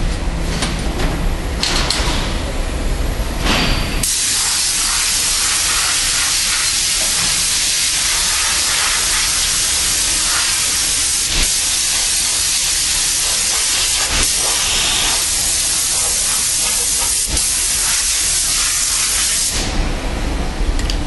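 A loud, steady hiss of compressed air at an aluminium die-casting machine, starting sharply about four seconds in and cutting off sharply shortly before the end. Before it there is only the low rumble of factory machinery.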